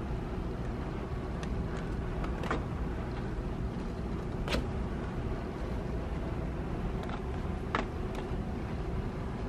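Steady low background rumble of a store, with a few short sharp clicks, the loudest about four and a half seconds in.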